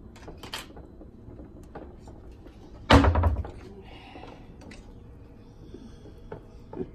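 Kitchen handling noise: faint clicks and rustles as stuffed vine leaves and tomatoes are packed into a metal cooking pot, with one loud thump about three seconds in.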